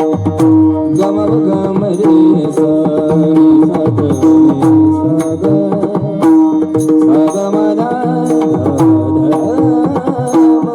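Marathi devotional bhajan music: a tabla plays a steady rhythm, its bass strokes gliding down in pitch, under a held drone and a bending melody line.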